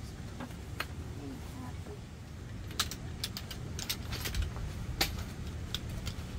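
Scattered light clicks and clinks of folding camp-chair frame poles being pulled apart and packed, most of them in the second half, over a steady low rumble.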